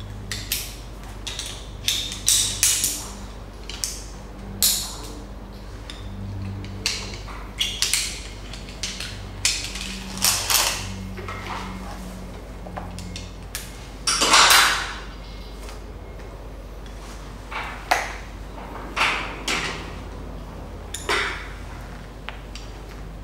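Metal carabiners and connectors on rope access lanyards clinking and clicking as they are handled and clipped to overhead anchor points, with rustling of rope and webbing. A longer, louder scrape of gear comes about fourteen seconds in.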